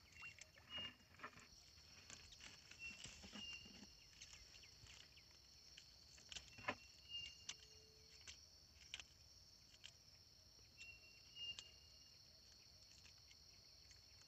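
Faint handling of a fishing net in a canoe: scattered light clicks, taps and rustles as the mesh and fish are worked over the hull. Behind it runs a steady high insect chirring, with a few short high chirps.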